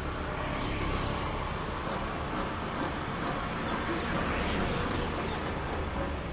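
Steady outdoor background noise: a low rumble with hiss, with no distinct events.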